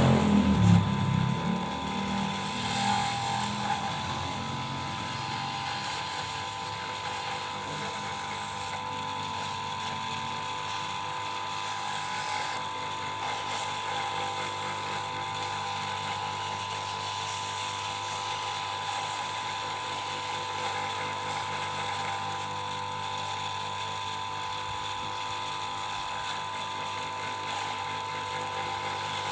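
Small electric motor of a homemade lathe running with a steady whine. There is louder low knocking and rumbling in the first few seconds.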